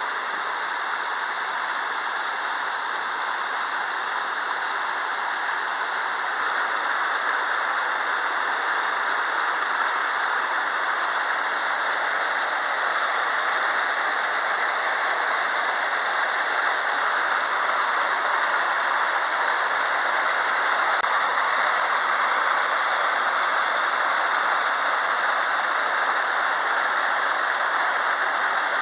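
Steady rushing of water pouring over a river waterfall, growing slightly louder about a quarter of the way in.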